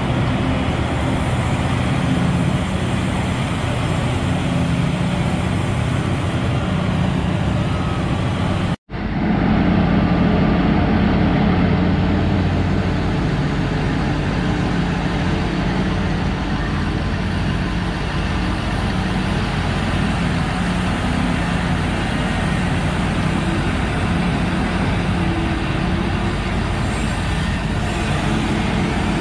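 Heavy diesel engines of a large Liebherr hydraulic mining excavator working, with a Komatsu 730E haul truck alongside, make a steady low drone with a hum. The sound cuts out abruptly for a split second about nine seconds in.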